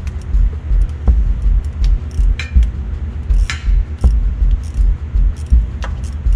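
Sharp metallic clicks and a couple of ringing jingles from a screwdriver and metal parts being worked by hand on an engine. Under them runs a loud, low, rhythmic throb.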